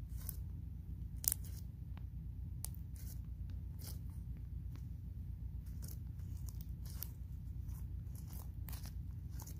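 Green slime squeezed and stretched in the hands, making irregular small clicks and pops, with one sharper pop about a second in. A steady low hum runs underneath.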